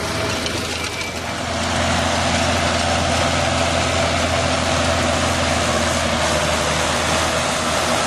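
John Deere 7530 tractor's six-cylinder diesel engine running steadily under load as it pulls a cultivator through the soil, dipping briefly about a second in.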